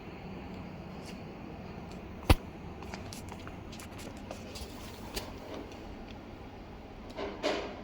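Steady machine hum with one sharp, loud click a little over two seconds in, lighter clicks scattered through, and a brief rustling noise near the end.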